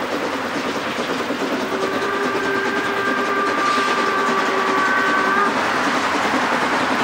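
Narrow-gauge steam train running toward the listener with a steady rumble, its locomotive's steam whistle sounding one long blast of several tones together from about two seconds in until about five and a half seconds, ending with a slight rise in pitch.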